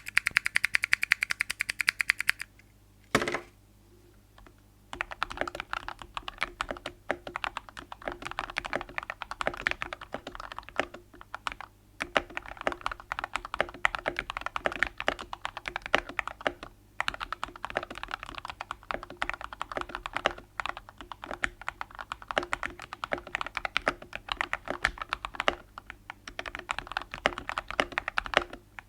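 Typing on a custom 60% mechanical keyboard with lubed TKC Tangerine V2 linear switches, PBT keycaps, a polycarbonate plate and a tape mod. It opens with a very rapid, even run of key clicks for about two seconds and a single heavy thud about three seconds in. From about five seconds there is steady fast typing with a few short pauses.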